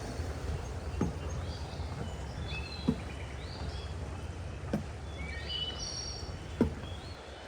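Footsteps of someone walking a trail, a soft thud about every two seconds, over a steady low rumble. Several small birds chirp in short high calls, thickest a little past the middle.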